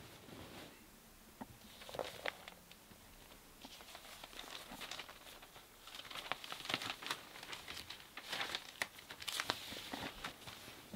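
Paper crinkling and rustling as sheets or pages are handled, in irregular clusters of small crackles about two seconds in and again from about six to nine and a half seconds.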